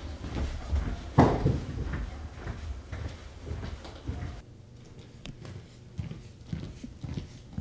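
Footsteps on a hard floor, soft and irregular, with one heavy thump about a second in.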